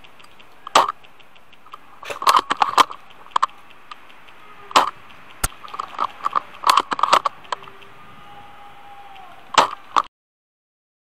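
Airsoft gunfire in a skirmish: sharp cracks, some single and some in quick runs of several, over a faint steady background. The sound cuts off abruptly about ten seconds in.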